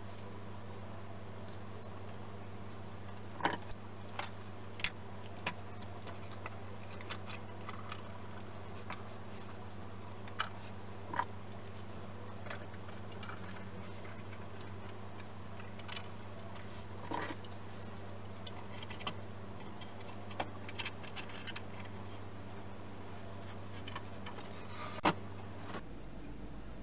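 Irregular metal clinks and taps as steel G-clamps are set and screwed tight by their sliding T-bar handles, over a steady low hum.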